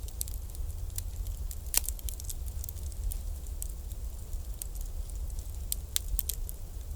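Bonfire crackling: irregular sharp pops and snaps over a steady low rumble, with a louder pop about two seconds in and another near six seconds.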